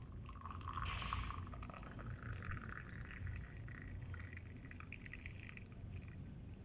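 Masala milk tea poured in a steady stream, the pitch of the pour rising gradually until it stops near the end.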